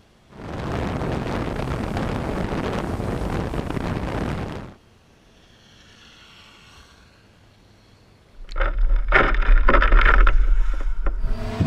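Ice water dumped from a bucket over a person's head, rushing and splashing steadily for about four seconds. After a quiet gap a second, louder and shorter splash follows, with sharp knocks and a low rumble close to the bucket-mounted camera.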